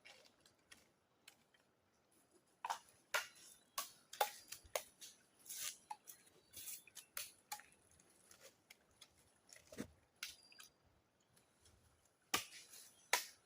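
Rodents gnawing and chewing bamboo shoots: irregular sharp crunches and clicks of teeth cutting into the shoot, several a second at times, with short pauses between.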